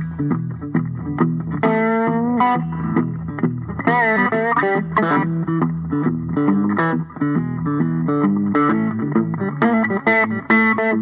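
Background music led by a plucked string instrument playing a quick run of repeated notes over steady low bass notes, with a couple of held, sliding melody notes about two and four seconds in.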